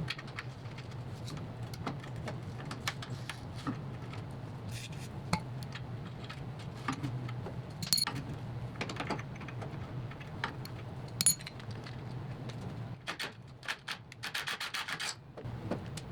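Hand tools working on a rusty steel car chassis: scattered clicks and knocks, two ringing metallic clinks, and a quick run of rubbing or scraping strokes near the end, over a steady low hum.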